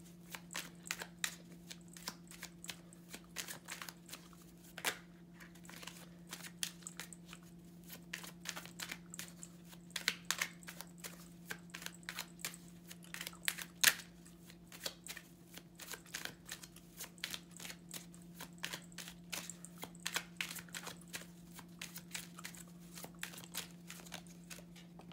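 Tarot cards being shuffled by hand: a long run of quick, irregular papery clicks and flicks. A steady low hum runs underneath.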